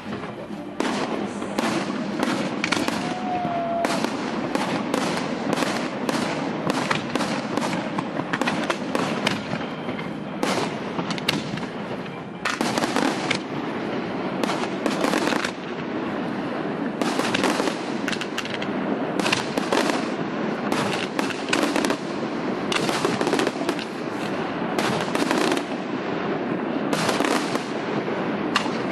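Professional fireworks display: a dense barrage of aerial shell bursts and crackle, bang following bang several times a second with hardly a pause.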